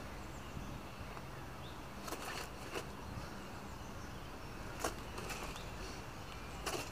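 Quiet outdoor ambience: a steady low rumble with a few brief scuffs or rustles spread through it, about four in all.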